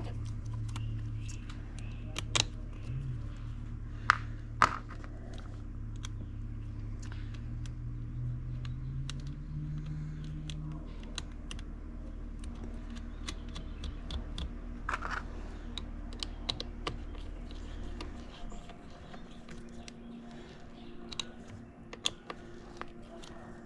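Small metallic clicks and taps of a screwdriver, nut and cable lug being fitted to a generator battery's negative terminal, scattered and irregular with a few sharper clicks. A steady low hum underneath stops about 18 seconds in.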